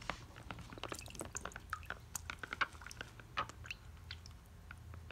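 Faint small splashes and clicks of water being stirred by hand in a plastic tub, as a tiny plastic toy doll is dunked and moved around in it.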